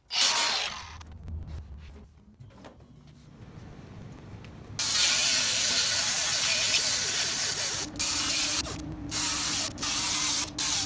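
Small right-angle die grinder with a sanding disc grinding weld off a cast aluminum intake manifold. It starts about five seconds in after a brief burst and a few quieter seconds, then runs steadily with a few short stops and restarts near the end.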